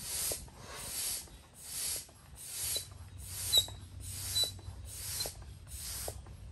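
Hand-operated stick air pump worked in steady up-and-down strokes, a rush of air hissing with each stroke, about eight strokes a little under a second apart, as it inflates a quick-set pool. A faint squeak from the pump sounds on a couple of strokes.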